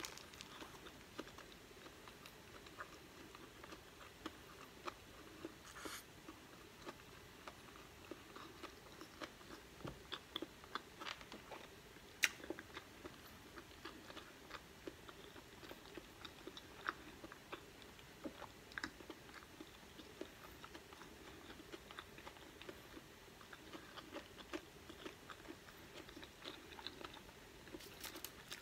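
A person chewing and biting a burger and crinkle-cut fries: faint, irregular mouth clicks and small crunches.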